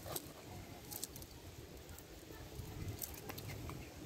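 Faint scattered light clicks and taps over a low, uneven rumble.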